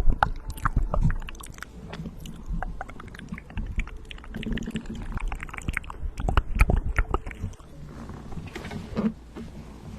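Close-miked ASMR mouth sounds: rapid wet clicks and smacks of lips and tongue, dense at first and thinning out over the last couple of seconds.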